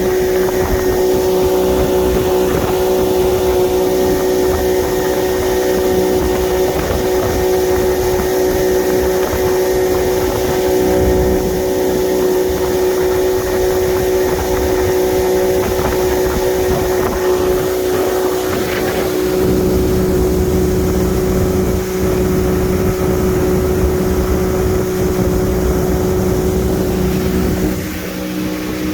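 Boat engine running steadily at a constant pitch, with wind rumble on the microphone. Near the end it eases off and its pitch drops.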